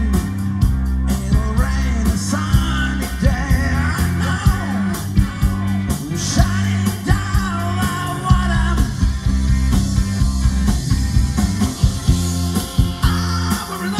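Live rock band playing: drums, bass and guitars with a wavering melodic lead line over a steady beat.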